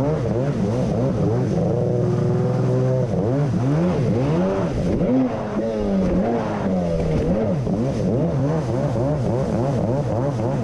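1990 Kawasaki JS550SX stand-up jet ski's two-stroke twin running at speed through a Coffman's half-pipe exhaust, its pitch wavering up and down again and again as the rider works the throttle, with rushing water and spray underneath.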